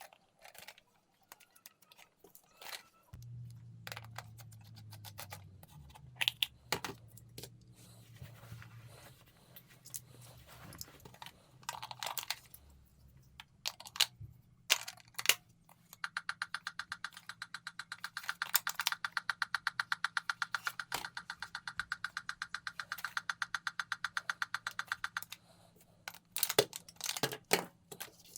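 Clicks, knocks and rattles of a plastic toy robot and its packaging being handled. Just past the middle there is a stretch of about nine seconds of fast, even ticking with a buzzy tone in it.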